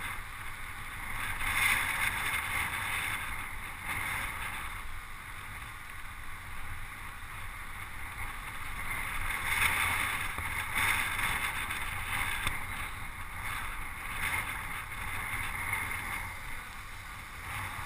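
Steady rush of wind over the microphone of a camera on a road bicycle moving at racing speed, swelling and easing, with a low rumble of road noise beneath.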